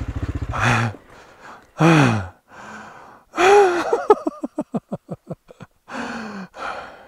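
AJP PR7's single-cylinder engine running at low revs, then cutting out about a second in. After it, a rider's laboured breathing: gasps and groans of effort, with a quick run of short panting breaths in the middle.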